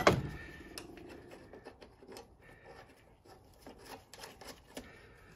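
A sharp click, then light scattered clicks and rubbing as an idler pulley and its belt are handled and fitted on a riding mower by hand.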